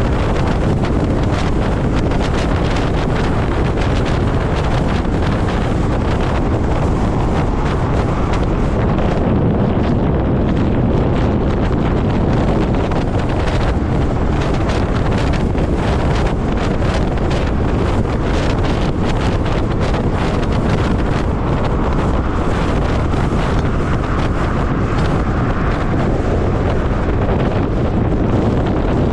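Steady wind buffeting on the microphone of a helmet-mounted camera, with a low rumble of air and road noise, from an electric motorcycle riding at highway speed, about 68 mph.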